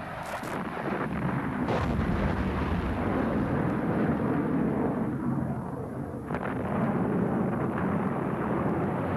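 Bomb explosions: a heavy, rolling low rumble with a few sharp cracks through it.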